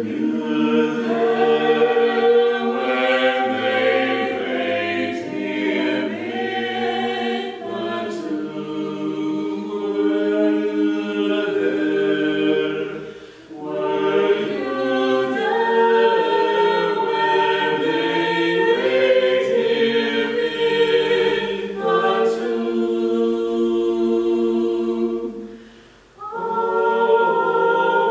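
Mixed-voice vocal quartet of two women and two men singing a slow hymn unaccompanied, in long held chords. The singing breaks off briefly about halfway through and again near the end, between phrases.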